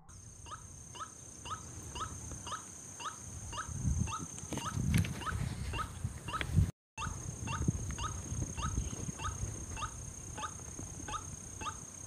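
White-breasted waterhen calling: a short, clucking note repeated about twice a second over a steady high drone. Some low rustling thumps come in the middle, and the sound cuts out for a moment just before halfway.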